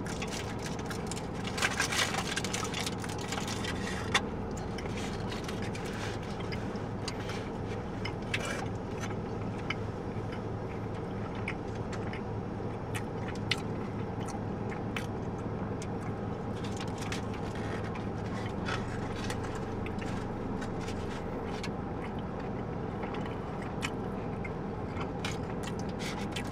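Aluminium foil burrito wrapper crinkling and rustling in short bursts as it is handled, loudest about two seconds in, with chewing, over a steady low hum inside a car.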